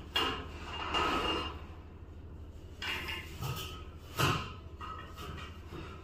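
A marker scraping over a galvanized steel cable tray and a steel square being shifted and lifted off it: short scrapes and light metallic knocks, the loudest knock a little after four seconds in.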